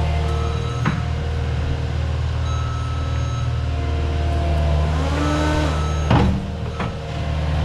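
Diesel engine and hydraulics of a compact earthmoving machine working dirt, running steadily, with a whine that rises and falls about five seconds in. A knock comes about a second in and another past six seconds.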